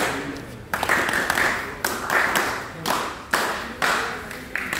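Loud, sharp smacks at an uneven pace, about one to two a second, each dying away in a short echo.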